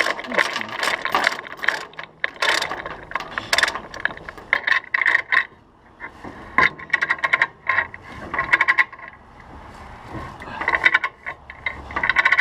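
Ratchet chain binder being cranked to tighten a tie-down chain: the pawl clicks rapidly in repeated bursts, one per swing of the handle, with short pauses between.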